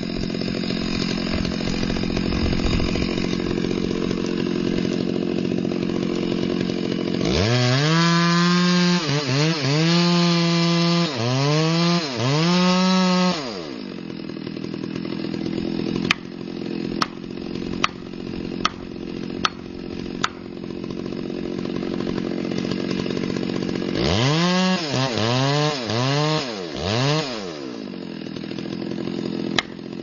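Chainsaw idling, revved hard in about four quick bursts a third of the way in and again near the end. From about halfway, sharp knocks come roughly once a second as a felling wedge is driven into the back cut.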